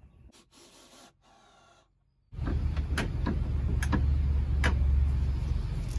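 Near silence for about two seconds, then a steady low rumble with a handful of sharp, irregular knocks and taps as wooden deck boards are handled and set onto the ramp frame.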